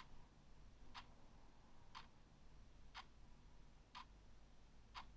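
Wooden-cased analog alarm clock ticking faintly, one sharp tick each second.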